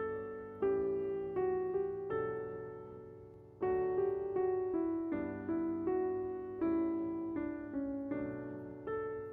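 Soft background piano music: slow, gentle chords and melody notes, each struck and left to fade.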